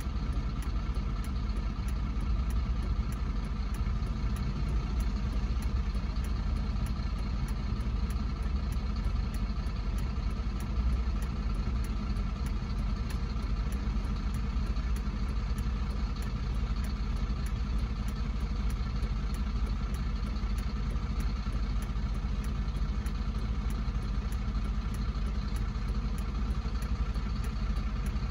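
Car driving, with a steady low rumble of engine and road noise that doesn't change.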